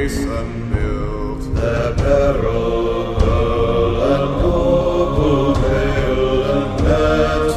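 Vocal music: a choir singing slow, long-held notes in several parts.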